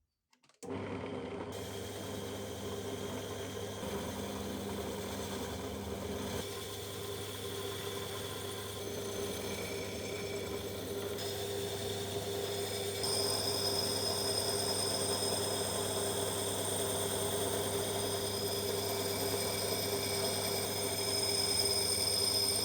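A small electric power tool running steadily with a constant hum, its sound changing a few times, at about six, eleven and thirteen seconds in, and growing a little louder towards the end.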